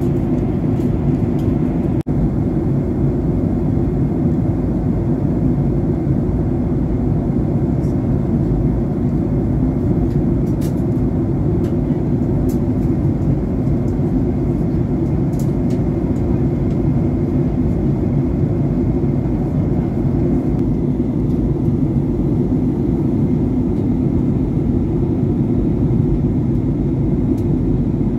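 Steady cabin noise of a Boeing 737-800 in flight: a deep, even rumble of the engines and rushing airflow heard through the fuselage, with a faint steady high whine over it.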